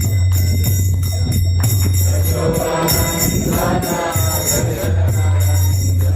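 Devotional group music: small hand cymbals ringing in a steady rhythm over a low held tone, with voices singing in the middle.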